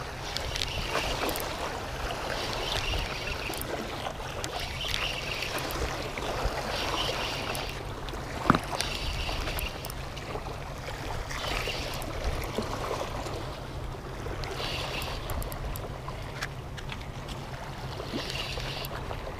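Spinning reel being cranked in short spells about every two seconds as a jig is worked and retrieved, over a steady low rumble and water noise. One sharp click about eight and a half seconds in.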